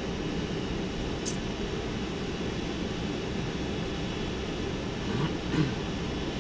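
Steady cockpit noise of a Boeing 747 rolling slowly before takeoff: its engines at low thrust and the air-conditioning make a constant rumble and hiss. There is a short click about a second in, and a brief louder sound a little past five seconds.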